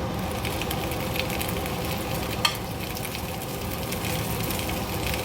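Kimchi seafood pancake frying in oil in a pan, sizzling and crackling steadily, with one sharp click about two and a half seconds in.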